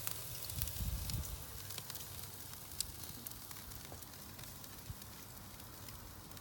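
Pork shoulder steaks sizzling over the open fire of a Santa Maria grill, a steady hiss with scattered sharp crackles and pops. A low rumble of wind on the microphone in the first second or so.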